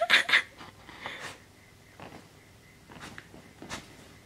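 A corgi sniffing and snorting through its nose in short bursts: three quick loud ones at the start, then fainter single ones about once a second.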